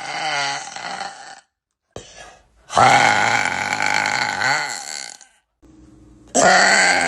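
A woman's long, loud burps, one after another. One trails off about a second in, the next lasts about two and a half seconds, and a third begins near the end.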